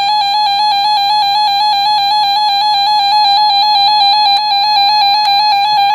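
Emergency alert attention tone from a weather radio broadcast: one loud, unbroken electronic tone held at a single pitch, with a buzzy edge from its overtones. It is the signal that an alert message is about to follow.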